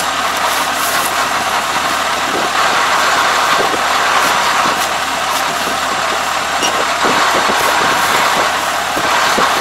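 Combine harvester engine running steadily, with faint scattered rustles of rice straw being pulled from the machine's clogged cutter area.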